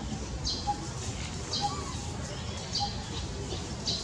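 A bird calling over and over, a short high chirp repeating about once a second, over a steady background hum.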